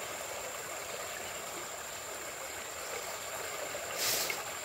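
Shallow muddy stream running over its bed, a steady rush of water. A short hiss rises over it about four seconds in.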